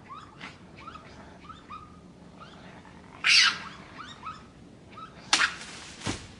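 A series of short rising animal calls, several a second, with two loud rustling noise bursts about three and five seconds in.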